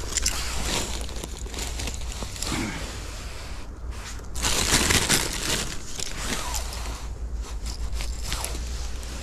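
Plastic shopping bag crinkling and rustling as it is handled while mushrooms are picked and dropped in, loudest for about a second around four and a half seconds in.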